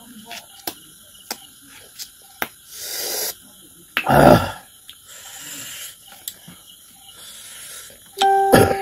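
Close-miked eating sounds of a man chewing food eaten by hand: sharp wet mouth clicks and smacks, then heavy breaths through the mouth and nose, with one loud breathy burst about halfway through. Near the end comes a short pitched hum.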